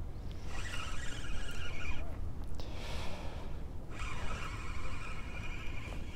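Spinning reel whirring in two stretches, the first about a second and a half long and the second about two and a half, as a hooked fish is reeled in, with a short hiss between them. Wind rumbles on the microphone throughout.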